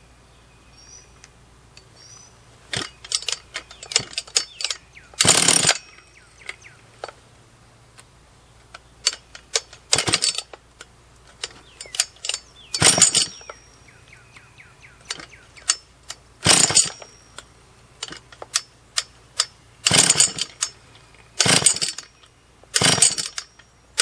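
Husqvarna 44 chainsaw being pull-started over and over: about eight hard pulls of the recoil starter, each a short noisy whir with clicks between them, and the engine doesn't keep running. The owner puts the failure to start down to the saw being flooded.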